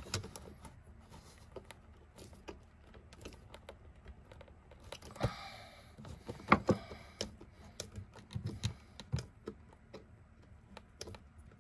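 Flat-blade screwdriver tightening worm-drive hose clamps on braided plastic hose at a plastic T-piece: an irregular scatter of small clicks and ticks as the blade works the clamp screw, with a few louder clicks past the middle.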